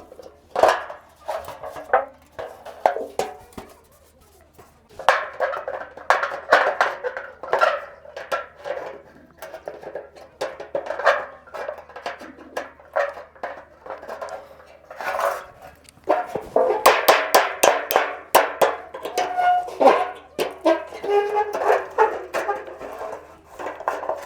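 Irregular series of sharp knocks and taps on the thin metal of a bent satellite dish as it is worked back into shape, with a short pause a few seconds in, over background music.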